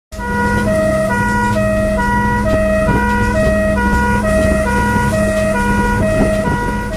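Emergency vehicle's two-tone hi-lo siren, alternating between a lower and a higher pitch held about half a second each, over a steady low engine and road hum.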